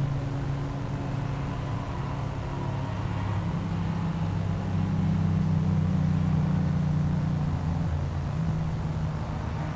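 Several classic racing saloon cars' engines running as the cars drive past, a steady low engine drone that swells a little about halfway through and eases off near the end.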